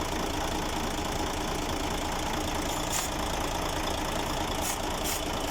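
Freshly overhauled Mercedes-Benz Actros 2040 diesel truck engine idling steadily, with a few faint clicks over the running.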